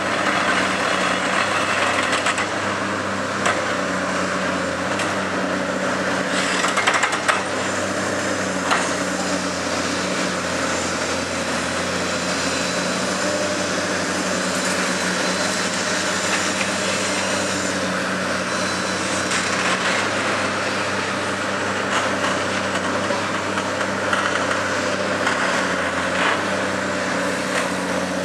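Diesel engine of a tracked demolition excavator running steadily under hydraulic load while its crusher jaws work a concrete deck, with a few sharp cracks of breaking concrete, the loudest about seven seconds in.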